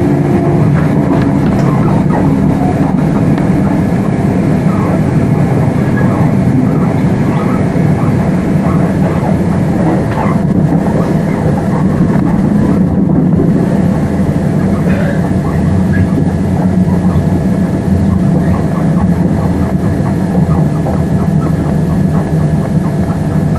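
Interior running noise of a c2c Class 357 Electrostar electric multiple unit under way: a steady rumble of wheels on rail with a faint steady whine over it.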